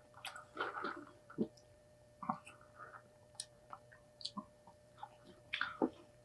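Close-up eating sounds: chewing food with scattered wet mouth clicks and smacks, louder a little under a second in and again near the end.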